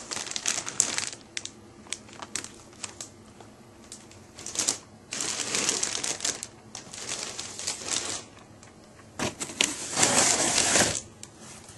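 Plastic wrapping rustling and crinkling, with scattered clicks and light knocks of model-airplane parts being handled and unpacked from the kit box. Longer rustles come about five, seven and ten seconds in.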